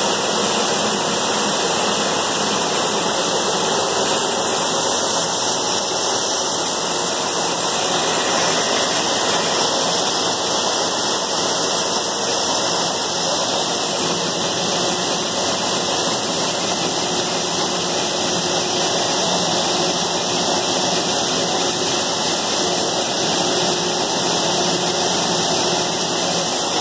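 Pinhalense coffee grading machine running, with coffee beans pouring steadily from its chutes onto a pile: a constant rushing hiss.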